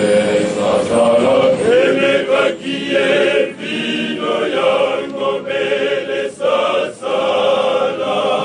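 Male choir singing together, many voices in short phrases separated by brief breaths.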